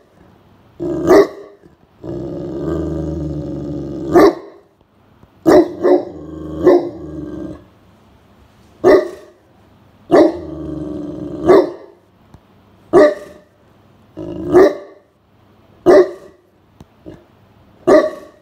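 Great Pyrenees giving about a dozen deep, loud alert barks a second or two apart, with long low growling grumbles between some of them: guard barking at someone near the house.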